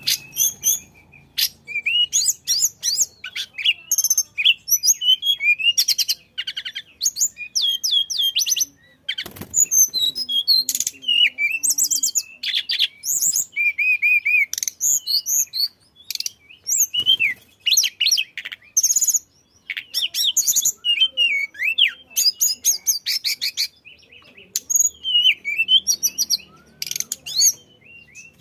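A tledekan songbird singing energetically: rapid, high-pitched chirping phrases and trills, with short pauses between phrases.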